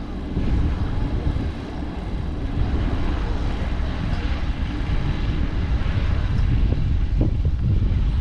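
Boeing B-17 Flying Fortress's four Wright R-1820 Cyclone radial engines running steadily as a dense, loud, low drone.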